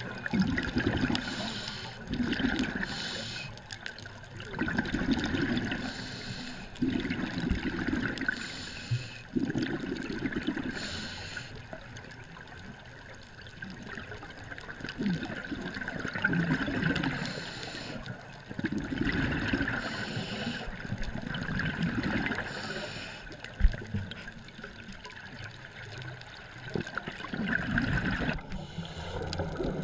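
Scuba diver breathing through a regulator underwater: a short hiss on each inhale, then a longer rush of bubbling exhaust on each exhale, one breath every few seconds.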